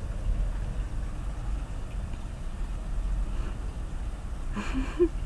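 Newly installed washing machine running with a steady low rumble. A short pitched vocal sound comes near the end.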